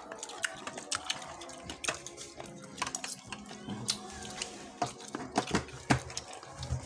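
Metal spoons clinking and scraping against stainless steel serving trays as food is scooped, in many irregular sharp clinks.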